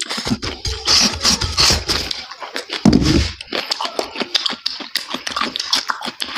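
A man chewing crispy fried pork fat cracklings with his mouth open: dense, rapid crunching with wet smacking mouth sounds.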